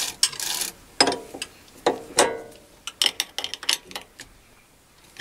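Metal clicks and clinks of a homemade tightening bar and spanner working against a steel ER32 collet chuck backplate as the chuck is tightened onto a mini lathe spindle. One clink, about two seconds in, rings briefly.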